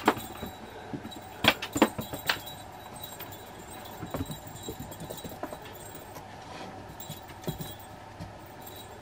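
A cat playing with toys on a hard floor makes a few scattered light knocks, clicks and rattles, the busiest cluster about a second and a half in, with one more around four seconds and one late.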